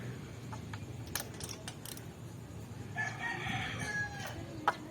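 A rooster crowing once, a held call of about a second, with a few scattered light clicks around it.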